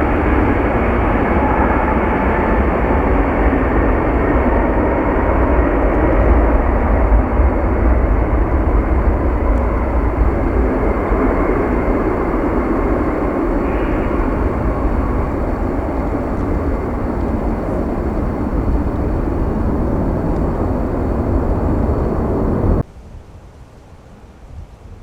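Jet airliner engines, loud and steady, cutting off abruptly about 23 seconds in, after which only faint wind noise remains.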